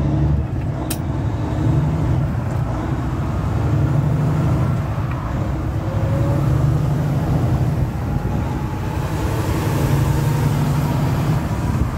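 Kenworth semi-truck's diesel engine running under way, heard from inside the cab as a steady low drone that swells slightly every couple of seconds.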